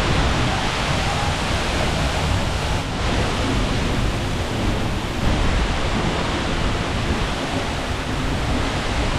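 Steady, loud rushing roar of a large waterfall's falling water, continuous and without a break.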